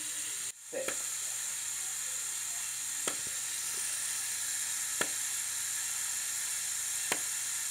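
Lego Technic 7-plus-reverse dual-clutch sequential gearbox shifting up through the gears, with a sharp click at each shift about every two seconds, four in all, over a steady hiss.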